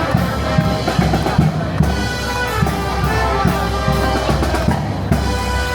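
Loud music with a steady drum-kit beat, bass drum and snare hits under pitched instruments.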